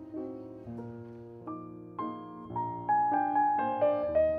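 Background piano music: a slow melody of single struck notes, each fading away, the notes coming quicker and louder in the second half.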